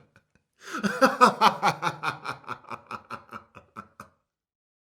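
A person laughing in a rapid run of 'ha-ha' pulses, about five a second, that starts loud about half a second in, then falls in pitch and trails off, ending about four seconds in.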